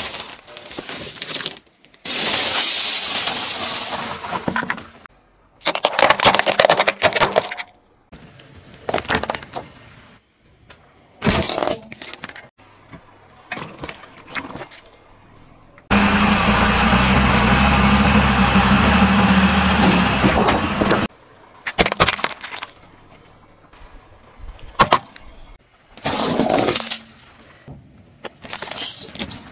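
A car tyre rolling over and crushing one object after another, with cracking, crunching and squishing, each clip cut off abruptly. Among them is a steady rushing noise about five seconds long after the middle of the sequence.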